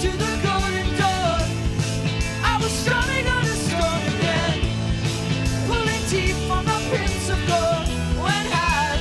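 Background rock music with a steady drum beat and a singing voice.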